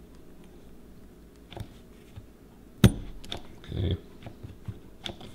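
Scattered small clicks and knocks of a bar clamp and a metal motorcycle brake master cylinder being handled while the plunger spring is held compressed. One sharp click a little under three seconds in is the loudest, followed by a short muffled rustle just before four seconds.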